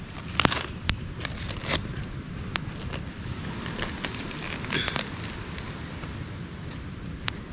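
Small open campfire crackling, with sharp pops scattered irregularly over a steady background hiss, and a few brief rustling bursts.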